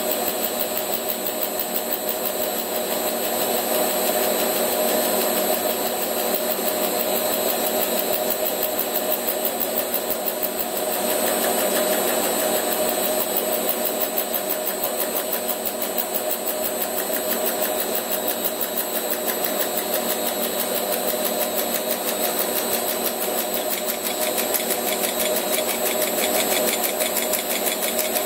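Gear-hobbing setup on a Rivett 608 lathe running steadily: the motor-driven hob cuts the teeth of a 15-tooth Delrin gear while a stepper motor turns the blank in step, giving a steady whine of several pitches with a fast, even pulsing in the high end.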